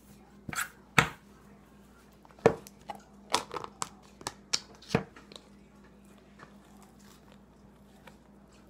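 Plastic slime tub being handled and its snap-on lid pried off: about ten sharp plastic clicks and cracks, clustered in the first half.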